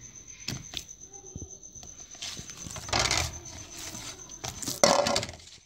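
Soft, sticky pizza dough being kneaded by hand in a steel bowl: wet squelching and slapping. It comes in two louder spells, one around the middle and one near the end, with a few light clicks before them.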